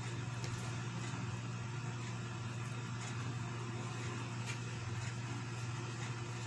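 A steady low machine hum, unchanging throughout, with a few faint ticks.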